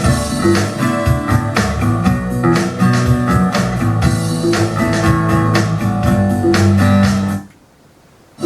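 Guitar-led instrumental rock passage played back through a Sony CT-HT80 2.1-channel soundbar and subwoofer, with a steady beat. The music cuts off suddenly about seven and a half seconds in and stays quiet for about a second.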